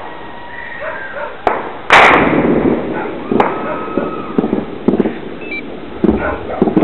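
One loud, sharp bang about two seconds in, echoing away over about a second, with fainter sharp pops before and after it.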